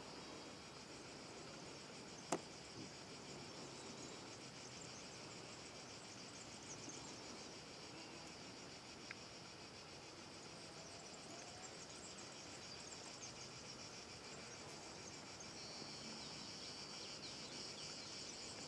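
Insects chirping steadily and faintly, with one sharp click a little over two seconds in.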